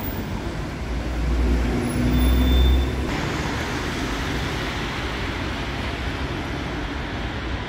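Steady city traffic noise, with a louder low rumble swelling about one to three seconds in.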